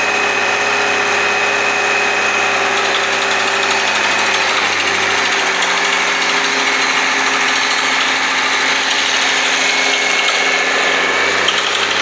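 Well-drilling rig and its air compressor running steadily while air-drilling a semi-artesian well that has already struck water. The engine note shifts about five seconds in.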